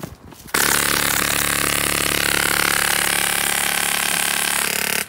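Loud, steady engine-like drone that starts suddenly about half a second in and cuts off abruptly near the end.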